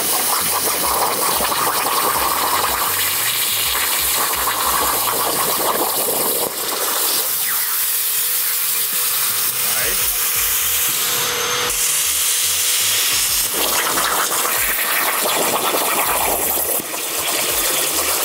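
CNC plasma cutter arc cutting quarter-inch copper plate on a 65-amp tip over a water table: a loud, steady hiss, with the water bubbling and spattering under the cut.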